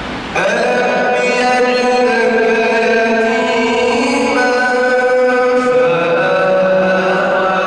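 A man reciting the Quran in a melodic chant, his voice coming in about half a second in and holding long, drawn-out ornamented notes.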